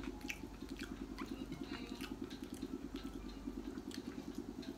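A steady machine hum pulsing evenly about eight times a second, with scattered small clicks and smacks from eating rice and fish by hand off a plate.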